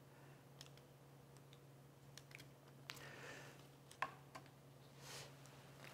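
Near silence: quiet room tone with a faint steady low hum, a few faint short clicks and two soft breaths.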